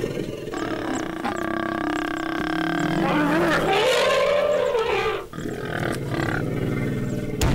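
African elephants trumpeting: a long call held at a steady pitch, then a second call that rises and falls about three seconds in, followed by lower, rougher calling.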